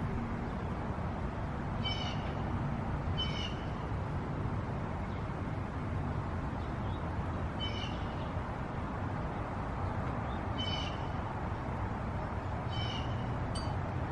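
Chickadee calling single short 'dee' notes, five of them spaced a second or several apart. A steady low background rumble runs underneath, and there is one sharp click near the end.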